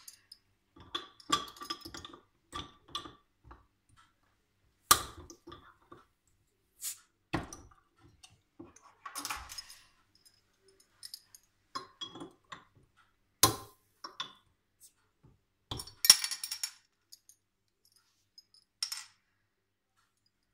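Metal chainsaw-shaped keychain bottle openers clinking in the hands and prying crown caps off two glass beer bottles: a series of separate sharp clicks and knocks with short rustles between them, the caps popping off and dropping onto the counter.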